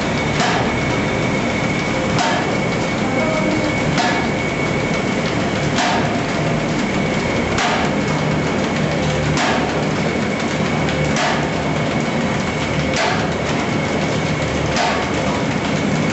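Automatic paper bag making machine running: a steady mechanical whirr with a thin high whine, and a sharp knock that comes round evenly about once every two seconds.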